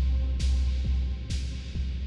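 Live deep techno played on Ableton Push and Maschine pad controllers: a heavy sustained sub-bass under a four-on-the-floor kick drum about twice a second. A bright noisy hit that fades out lands on every other beat, with short held synth notes over the top.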